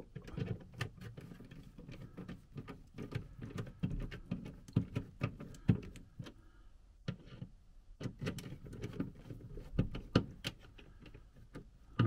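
Irregular small clicks, taps and scrapes of a screwdriver working screws into a plastic fridge light fitting, with a short pause past the middle.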